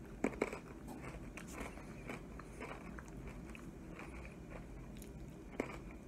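A person biting into a crunchy honey-roasted sesame stick, with two sharp crunches just after the start, then chewing it with a run of faint crunches and one louder crunch near the end.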